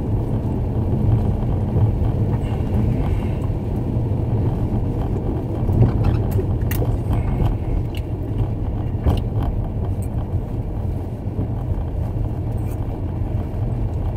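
Steady low rumble of car cabin noise with the engine running, broken by a few light clicks or knocks around the middle.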